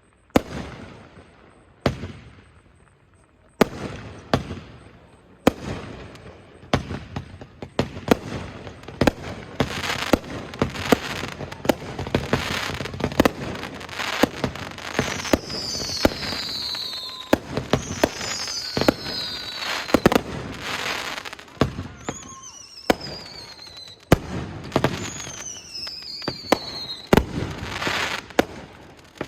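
Fireworks barrage: bangs come a few seconds apart at first, then pile up into a fast run of reports over continuous crackling. Several whistles fall in pitch in the second half.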